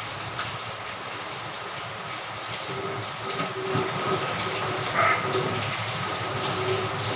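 Steady rushing of water, growing a little louder about three seconds in, with a faint steady high tone and a few light clicks.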